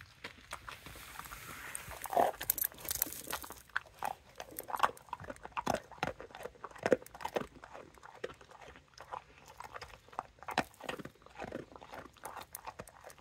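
A dog sniffing and licking at a treat on concrete, making an irregular run of wet mouth clicks and smacks as it tries to pick it up.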